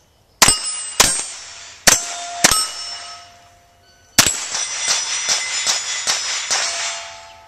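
Rimfire rifle shots on steel plate targets: four sharp shots in the first three seconds, each followed by the ring of struck steel. After a short pause another shot comes about four seconds in, followed by a quick run of ringing metallic strikes about three a second that fades out near the end.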